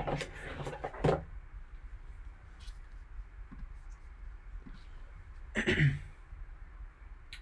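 Trading cards and their packaging being handled: soft rustling in the first second, then a short, louder rustle about six seconds in.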